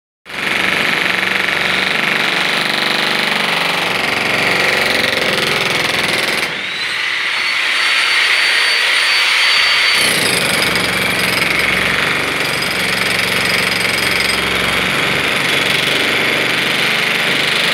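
A 16 kg electric demolition hammer runs continuously with a loud, rapid hammering as its chisel breaks up a concrete floor. A high whine comes in a little after six seconds and drops away near ten seconds.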